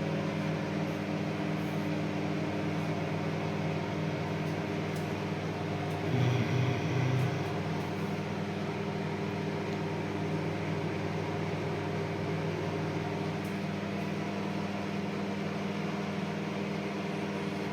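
Microwave oven running on high: a steady electrical hum with the fan running. The oven is heating again after its fuse and parts were replaced, and the running sound differs from when it would not heat.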